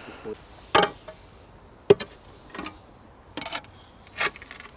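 Irregular scraping and knocking as a heavy grave cover is pushed and shifted into place by hand, about six short knocks and scrapes with one sharp knock about two seconds in.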